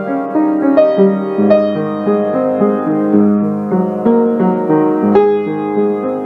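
Piano music: single notes struck one after another over sustained chords, at an unhurried pace.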